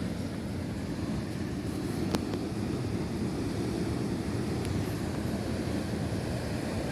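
Sea waves washing, heard as a steady low rumble with wind buffeting the microphone; a single sharp click about two seconds in.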